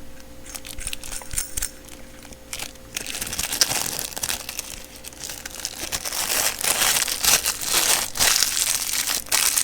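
Switch packaging crinkling as it is handled, light rustling at first, then denser and louder crackling from about three seconds in.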